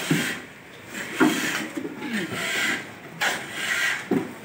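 Shovel scraping into a pile of sand and gravel as buckets are filled, several gritty scrapes about a second apart.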